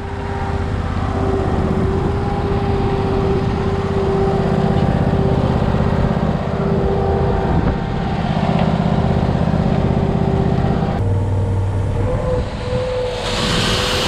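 An engine runs steadily with a constant hum. Near the end its pitch steps up and a rushing hiss starts as rye grain begins pouring out through the weigh wagon's hopper.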